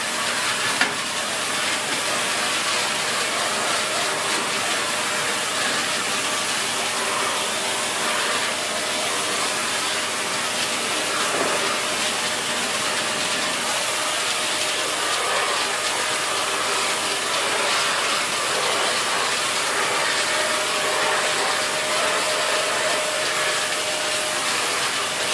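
Dyson Big Ball Animal (CY23) cylinder vacuum cleaner running steadily: a constant rush of suction airflow with a faint motor whine.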